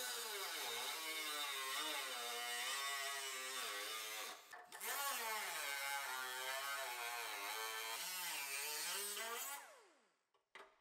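Small handheld cut-off tool with a thin abrasive disc cutting through automotive sheet-steel body panel, its pitch sagging and recovering as the disc bites and eases off. It breaks off briefly about four seconds in, resumes, and stops shortly before the end.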